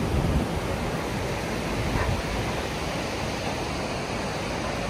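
Steady rushing of a fast-flowing river pouring through the arches of a stone bridge.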